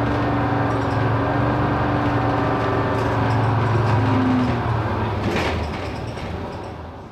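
Bus engine running steadily, with a short hiss of air about five and a half seconds in, then the sound fades out.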